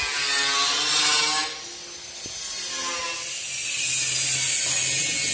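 Metal-working power tool noise: a harsh, hissing grind that grows louder and steadier about three seconds in.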